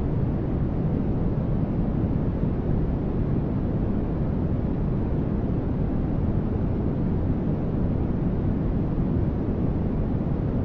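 Continuous synthetic static noise for sleep masking, steady and even with no changes. Most of its energy sits low, so it sounds deep and soft rather than bright and hissy.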